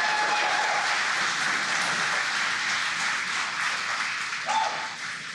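A crowd cheering and applauding in the background, a dense wash of clapping and shouts that greets the successful stage separation. One voice calls out briefly about four and a half seconds in, and the noise fades near the end.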